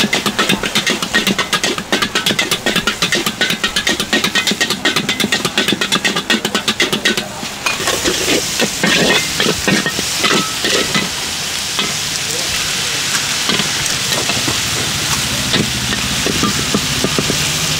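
Metal spatula scraping rapidly against a black wok as noodles, meat and greens are stir-fried over high heat. About eight seconds in, the quick scraping gives way to a steady, louder sizzle, with eggs added to the hot wok, and only an occasional scrape.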